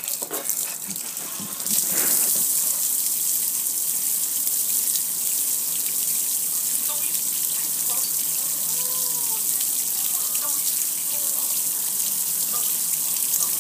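Water spraying onto a gas grill, splashing off the metal lid and running down the front panel in a steady hiss. A few handling knocks come first, and the spray sets in about two seconds in.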